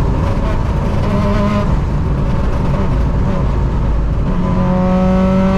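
Rally car engine and road noise heard inside the cabin while the car is driven at speed. A short pitched engine note comes about a second in, and a pitched note that rises slowly as the car accelerates comes from about four seconds in.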